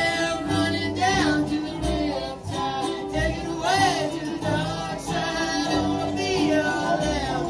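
Live acoustic folk string band playing: a sung melody over strummed acoustic guitars and the steady low notes of an upright bass.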